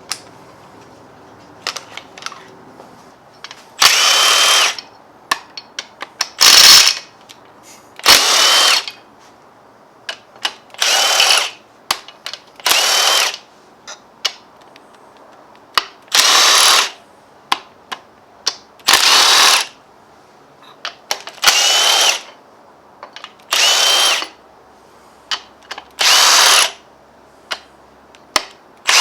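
Hand-held power drill running in about ten short bursts of roughly a second each, spinning out engine bolts, with small metallic clicks between the bursts.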